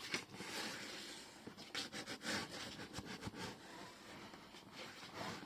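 A sheet of textured printed paper being handled and folded, giving a run of soft, irregular rustles and scrapes.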